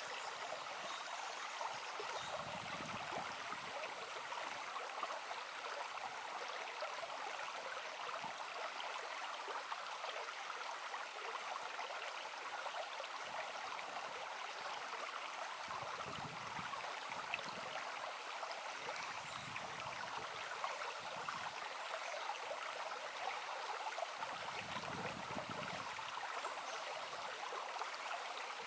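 Shallow babbling brook, water running and burbling steadily, with a few soft low rumbles in the second half.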